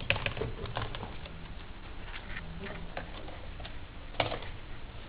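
Light clicks and taps of hands handling laptop parts while plugging in the screen's cable connector, with a sharper click about four seconds in.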